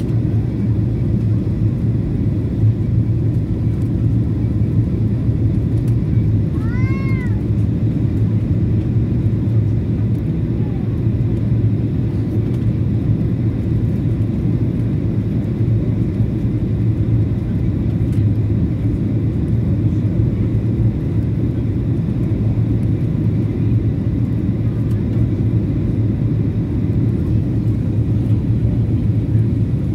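Steady low cabin noise of a Boeing 737-800 on final approach: engines and airflow heard from a window seat. About seven seconds in, a brief high-pitched cry rises and falls over it.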